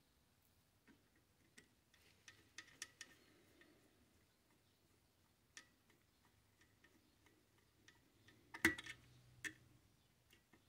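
Screwdriver working a small screw in a sheet-metal fare box bracket: faint, scattered small clicks and ticks of the tip and metal parts, with a sharper click near the end.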